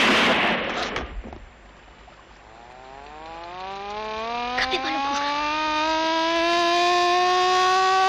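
A loud burst of noise fades out within about a second. Then a motor-driven alarm siren winds up, its pitch rising slowly and levelling off into a steady wail, with a couple of sharp cracks about halfway through.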